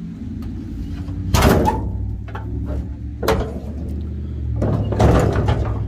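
An engine idling with a steady low hum, broken by three loud bursts of noise about two seconds apart.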